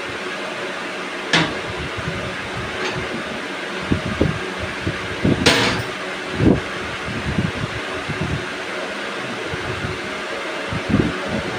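Steady fan-like noise with a few sharp knocks, the loudest about five and a half seconds in.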